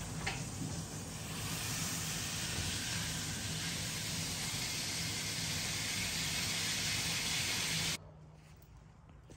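Steady hiss and sizzle of food frying in a pan, with a low hum beneath. It cuts off suddenly about eight seconds in.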